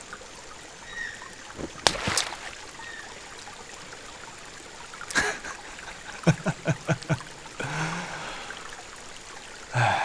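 Stream water trickling steadily over rocks, with a couple of sharp clicks and a man's short laugh about six seconds in.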